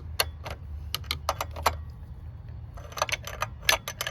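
Ratchet wrench clicking in short runs of sharp metallic clicks as an 18 mm fitting is tightened down, with a pause of about a second in the middle.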